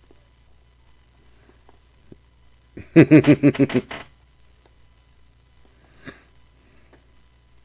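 A person laughing: a short laugh of quick pulses lasting about a second, starting a little under three seconds in.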